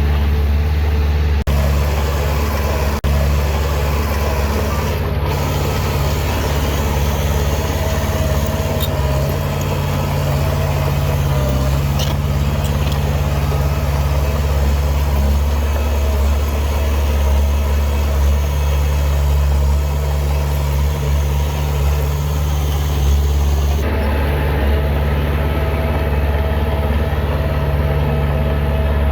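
Heavy diesel engine of earth-moving machinery running steadily, a continuous low drone with no clear revving.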